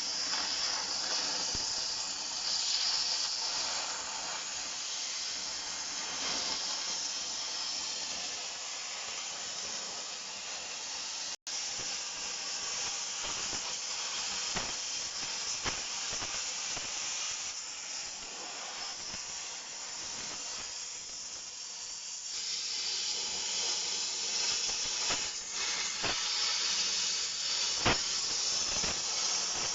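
Steady hissing, crackling noise of a crack in a steel bucket being gouged out to a bevel, with a few sharp cracks along the way.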